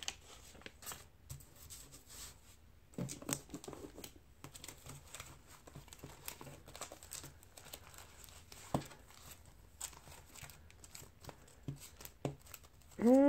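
Soft rustling and crinkling of paper bills and a paper cash envelope being handled, with scattered light clicks and taps as the money is sorted and slipped into the envelope.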